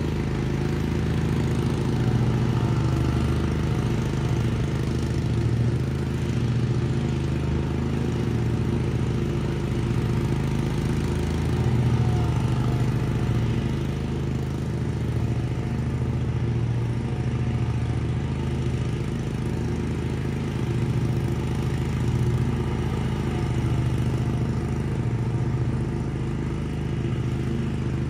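Lawn mower engine running steadily at a constant speed, its level swelling and dipping slightly as the mower moves.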